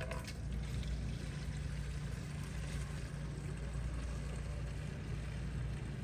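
Purple Power degreaser poured from its jug into a pump sprayer, a steady pour of liquid over a low background hum.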